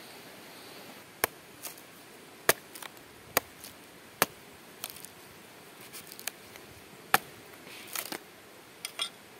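A string of sharp chopping knocks at uneven intervals, a dozen or so, with a few louder strikes among softer ones.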